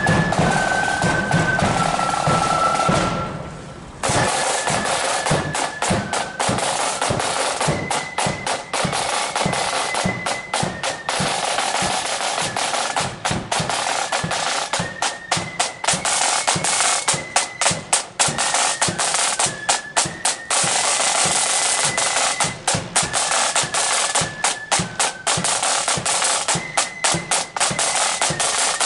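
Marching flute band. The flutes finish a tune, and after a brief break about four seconds in, the snare drums carry on with rapid rolls and beats over bass drum, with a few faint held notes above them.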